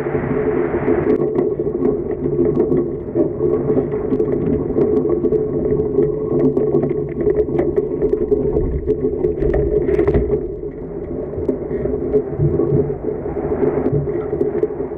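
Steady muffled rush of wind and water heard through a mast-mounted camera on a foiling Moth dinghy, with small clicks and rattles from the rig.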